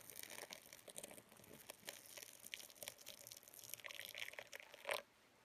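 A thin stream of just-boiled water poured from a height into a gaiwan of sheng pu-erh tea leaves, splashing and pattering on the water's surface. The pour stops suddenly about five seconds in.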